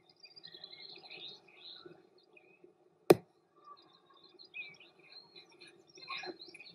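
Small birds chirping on and off, over a faint steady hum, with one sharp click about three seconds in.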